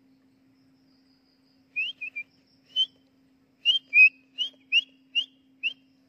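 A series of about eleven short whistled notes, each a quick upward slur: a few close together about two seconds in, then a faster run from just before four seconds in.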